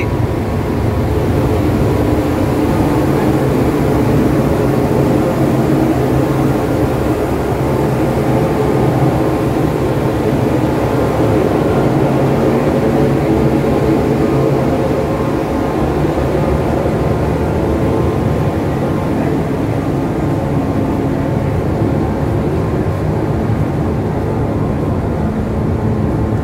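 Steady loud drone of a car ferry's diesel engines running while the ship lies moored, a dense low hum with a few steady tones in it.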